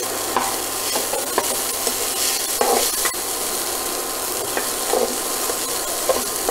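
Crumbled idli being stirred and tossed into fried onions and tempering in a metal kadai with a slotted metal spatula: a steady frying sizzle, with scattered scrapes and taps of the spatula against the pan.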